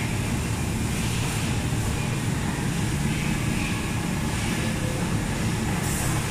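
Steady low drone of factory machinery and ventilation, with no distinct knocks or tools standing out.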